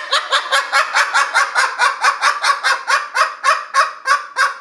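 A bird calling in a rapid, unbroken run of short pitched calls, about five a second, steady in rhythm and loudness.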